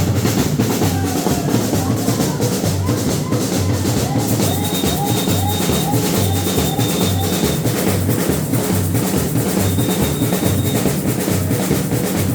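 Batucada, a Brazilian samba percussion section, playing a steady groove: low bass-drum beats repeat under dense, fast drum strokes. A high steady tone comes in and out from about four seconds in.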